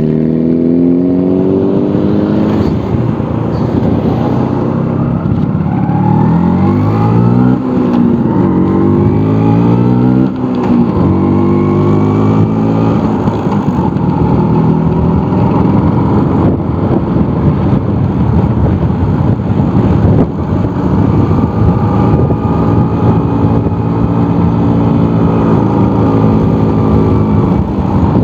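Vintage Vespa scooter's two-stroke engine under way, its pitch climbing and dropping with throttle and gear changes in the first ten seconds or so, then running at a fairly steady speed.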